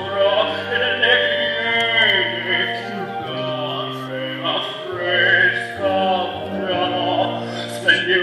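Live musical-theatre performance: operatic-style singing over an accompaniment with a slow, held bass line.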